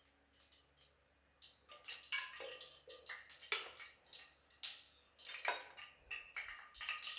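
Cooking oil heating in a kadai on a gas stove: faint, irregular crackles and clicks, a few every second.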